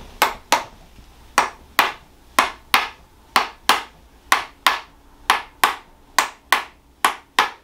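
Red mallet tapping a handheld chiropractic adjusting tool pressed against the lower back at the bottom of the pelvis. Sharp double taps, the two strikes a third of a second apart, repeated about once a second, eight pairs in all.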